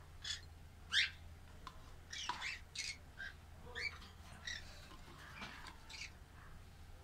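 Small pet parrots chirping and squawking in short, scattered calls, about a dozen in all, with one louder squawk about a second in.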